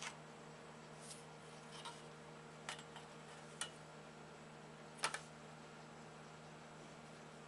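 A few light clicks and taps of a steel rule and pencil being positioned on a guitar-body template, the loudest a quick double click about five seconds in, over a steady low hum.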